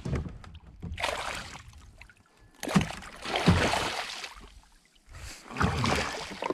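Northern pike thrashing and splashing at the side of a kayak as it is grabbed by hand, in three bursts of splashing.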